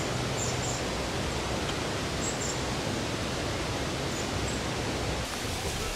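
Steady, even outdoor rushing noise with a few faint, very brief high chirps.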